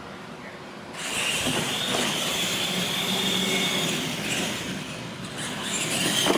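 Radio-controlled monster trucks racing, their electric motors and gears whining steadily. The sound comes in suddenly about a second in.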